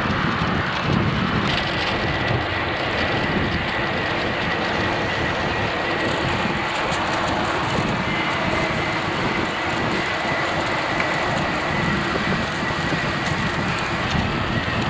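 Steady rushing hiss while riding a recumbent trike along a wet path beside an irrigation water cannon spraying over maize: wind on the microphone, tyres on the wet surface and falling spray blend together. A faint, steady high whine runs underneath.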